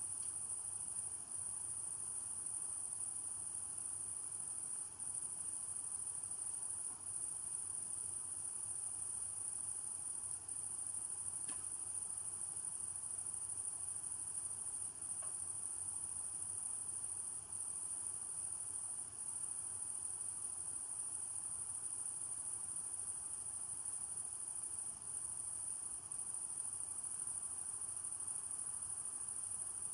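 Steady, high-pitched insect chorus, crickets by the sound, running on without a break except for short dips every few seconds.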